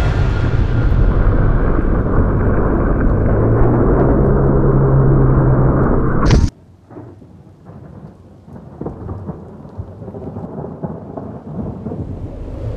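Loud, muffled rumbling with a steady low drone, as picked up by a helmet camera on a snow bike ploughing through deep powder. It cuts off abruptly about six and a half seconds in, leaving quieter crackling and rustling that grows louder toward the end.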